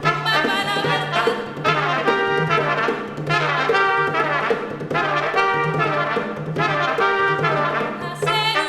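Brass band playing a lively tune: trumpet and trombone phrases over an evenly pulsing bass line.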